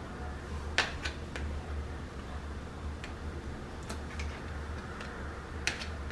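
A metal spoon clicking and tapping as margarine is scooped from a plastic tub and dabbed onto chicken in a baking dish. There are about seven scattered sharp clicks, the loudest about a second in and near the end, over a steady low hum.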